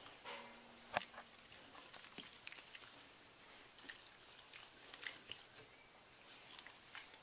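Faint soft clicks, mouth smacks and rustles of an adult Labrador and a young Labrador puppy mouthing and nibbling at each other on a sheepskin rug, with one sharper click about a second in. A short steady low tone, about a second long, sounds near the start.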